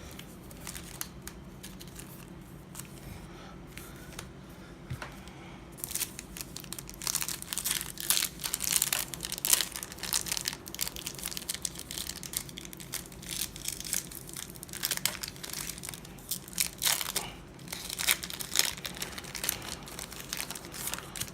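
Crinkling and tearing of a trading-card booster pack's wrapper as it is torn open and handled, in many short, sharp crackles that start about six seconds in, over a low steady background hum.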